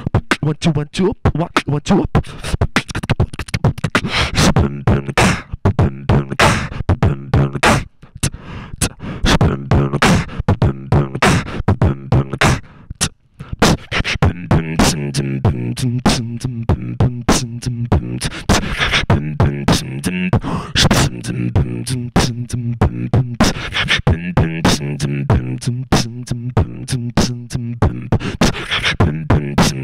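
Solo beatboxing into a handheld microphone: fast vocal kick, snare and hi-hat sounds in a steady beat. There is a brief break about 13 seconds in, after which a low pitched bass tone runs under the percussion.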